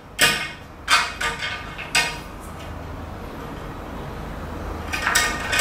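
Short clattering scrapes as a sliding glass door's frame is handled, four in the first two seconds and a longer cluster near the end, over a low steady hum.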